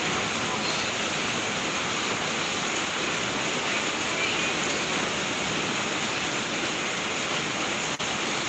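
Steady heavy rain falling, an even unbroken hiss.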